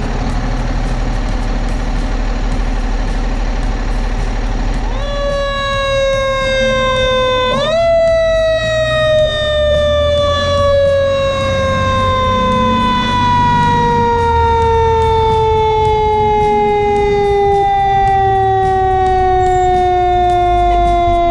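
Fire truck siren: a steady low engine rumble, then about five seconds in the siren winds up, climbs again sharply near eight seconds, and slowly winds down in pitch for the rest of the time.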